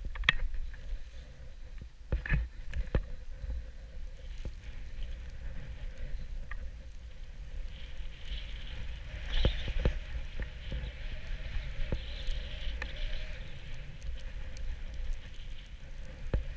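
Snowboard scraping and chattering over chopped-up, tracked snow, louder for a few seconds in the middle, with wind rumbling on the action camera's microphone. Several sharp knocks as the board hits bumps.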